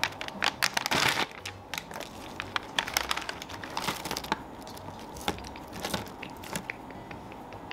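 Crinkly foil snack bag (a TABI Thai snack mix) being handled and shaken, with a hand rummaging through the nuts and crackers inside. There is a dense run of crackles about a second in, then scattered ones.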